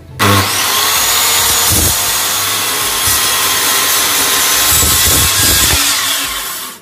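Bosch GKS 140 circular saw starting up and cutting a 45-degree bevel through a wooden board, the blade running loud and steady through the wood. The sound starts abruptly just after the beginning and falls away at the very end.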